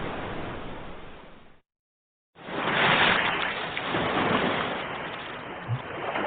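Sea waves washing on a shore. The sound fades out to a brief dead silence about a second and a half in, then a wave surges back in loudly and washes on.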